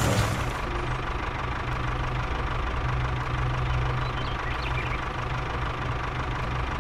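Tractor engine running steadily at idle, a low even hum.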